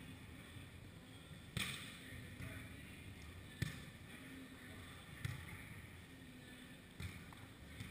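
A volleyball being hit in a sand volleyball rally: four sharp slaps of hands and forearms on the ball, spaced about two seconds apart, the first the loudest.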